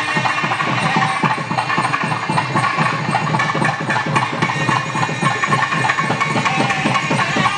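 Temple festival music: fast, steady drumming with a held melody line wavering above it.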